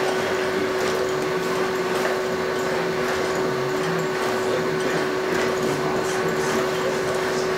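Steady electric hum with one constant tone under a noisy whir, from the COMAN humanoid robot's electric joint motors and drives as it walks.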